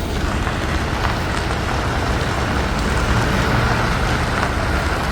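Vehicle driving on the road: steady road and tyre noise with a constant low rumble.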